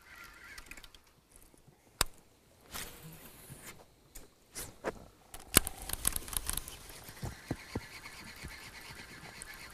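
Fishing rod and reel being cast and worked from a boat: a sharp click about two seconds in, another click and a brief whir of line going out about halfway through, then faint ticking as the line is reeled in.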